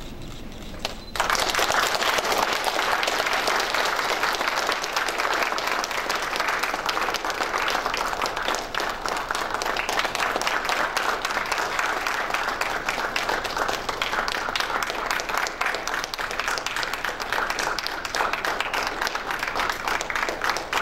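Audience applauding. The clapping starts abruptly about a second in and keeps up at an even level.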